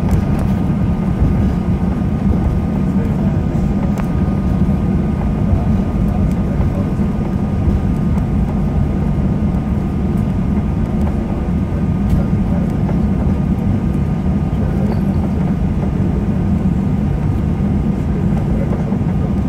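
Cabin noise inside a Ryanair Boeing 737 taxiing: the steady low rumble of the jet engines at taxi power and the wheels rolling along the taxiway, with a faint steady whine above it.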